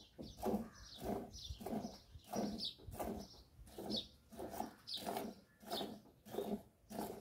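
Milk squirting from a cow's teats into a steel bucket of frothy milk during hand milking. The squirts come in a steady rhythm of about two a second.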